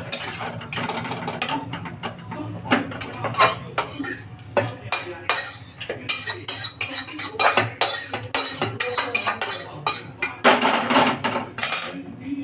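Metal kitchen utensils clinking and scraping against a pot or dish, many short knocks in quick, uneven succession.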